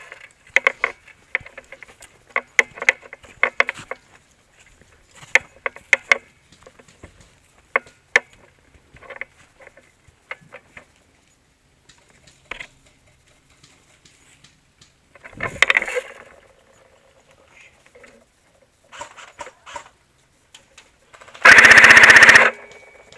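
Scattered single snaps of airsoft guns firing through the first half. Near the end comes one close, very loud burst of rapid automatic fire lasting about a second, from an airsoft MG42 replica machine gun.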